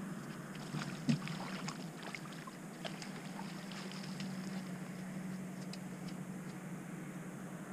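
Bow-mounted trolling motor of a pontoon boat humming steadily, with scattered light knocks and ticks, the loudest about a second in, as a crappie is netted and handled on deck.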